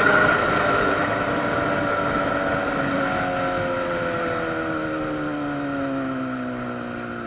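Honda Hornet motorcycle's inline-four engine running while riding. Its pitch falls steadily through the second half as the revs drop and the bike slows.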